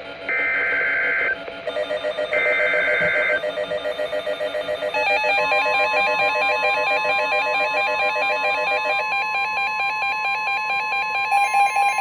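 NOAA Weather Radio emergency alert: the last two of three SAME header data bursts, each a harsh warbling screech about a second long, overlapped from about two seconds in by a pulsing electronic alarm. From about five seconds the 1050 Hz warning alarm tone comes in as a steady tone under the faster pulsing alarm, announcing a severe thunderstorm warning.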